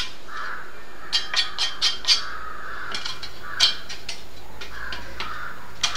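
Crows cawing repeatedly, with a run of about five sharp knocks about a second in and a few single knocks later.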